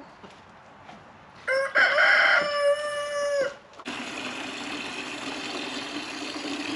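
A rooster crows once, a loud held call of about two seconds starting about a second and a half in. About four seconds in, a steady humming hiss starts.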